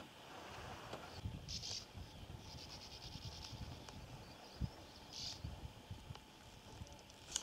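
Faint whirring of a spinning reel being cranked in short spells as a lure is retrieved, over scattered low thumps of handling noise.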